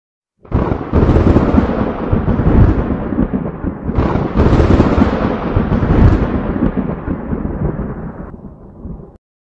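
Thunder sound effect: a loud crack of thunder about half a second in, rumbling on, then a second crash about four seconds in that rolls and slowly fades before cutting off suddenly near the end.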